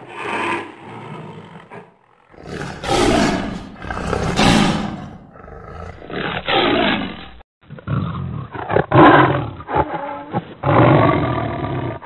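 Sabertooth cat sound effect: a series of big-cat roars and snarls. Two long roars come in the first half, then a run of shorter, choppier growls and snarls that sound duller from about six seconds in.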